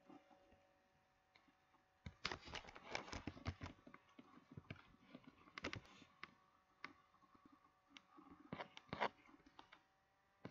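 Faint computer keyboard typing in quick clusters, then a few separate clicks, over a faint steady hum.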